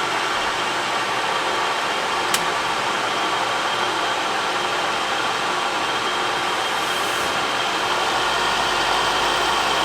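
Metal lathe running, its cutting tool facing the end of an aluminum bar under auto feed: a steady hiss of the machine and cut, with one sharp click about two seconds in and a low hum coming in near the end.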